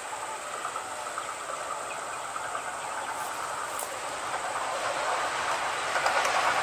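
Diesel locomotive approaching along the track, its running and rail noise growing steadily louder as it nears.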